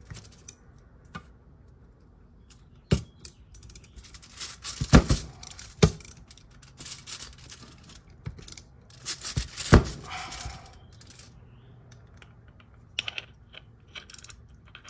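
Torx bit and hand driver working the bolts loose on a two-stage oil pump: scattered sharp metal clicks and clinks, with busier runs of quick clicking about five and ten seconds in.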